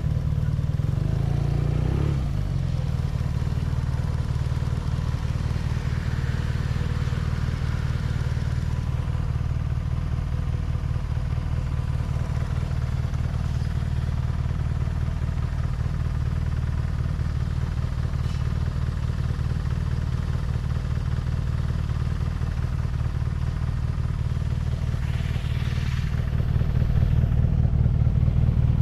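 BMW R nineT's 1170 cc boxer twin running steadily under a constant throttle. A brief rushing sound passes near the end, and the engine pulls a little harder in the last couple of seconds.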